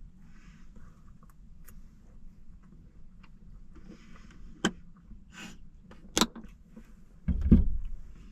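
Sharp clicks and knocks of things being handled, with a heavy low thump near the end, over a low steady hum.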